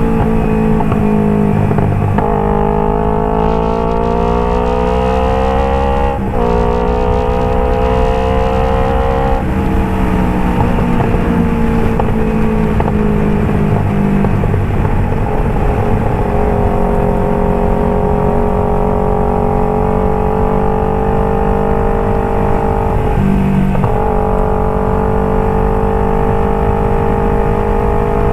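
Kawasaki Ninja 250 FI parallel-twin engine through a Phoenix aftermarket exhaust, under way. Its pitch climbs under acceleration, drops sharply at a gear change about six seconds in and climbs again. It then settles into a long steady cruise, with one short dip in pitch near the end.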